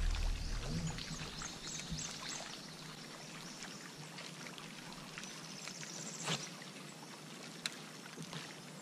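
Water lapping quietly against a bass boat's hull, with a few small clicks and taps from the deck. A low thump against the boat dies away in the first second.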